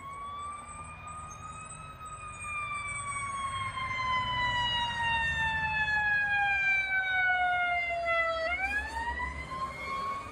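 Fire ladder truck's siren sounding one long wail. It rises for about two seconds, falls slowly for about six, then climbs steeply again near the end. The truck's engine rumbles low underneath, louder as it passes.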